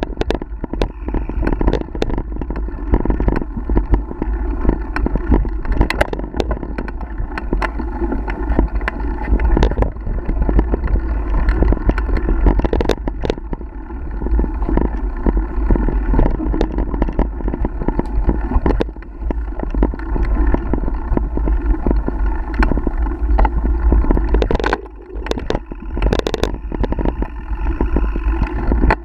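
Mountain bike riding fast down dirt singletrack, heard from a bike-mounted camera: steady wind rumble on the microphone and tyre noise, broken by frequent sharp knocks and rattles as the bike hits roots and bumps. There is a brief lull about 25 seconds in, then a quick cluster of loud knocks.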